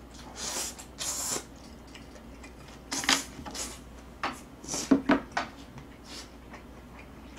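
Someone eating ramen noodles: several short slurps and mouth sounds, with a few sharp clicks of chopsticks and a ladle against a bowl.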